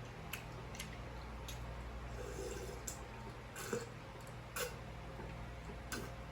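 Close-miked eating sounds: chewing with sharp mouth smacks and clicks every half-second to second, over a low steady hum.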